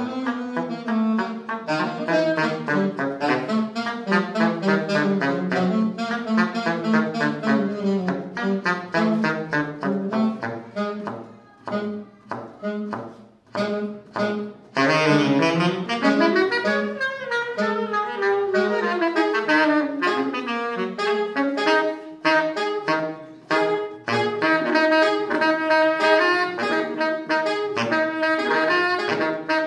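Two saxophones improving freely together, their lines weaving over each other. About halfway the playing thins out with short gaps, then comes back loud with sliding pitches, and in the later part one holds a long steady note under the other's moving line.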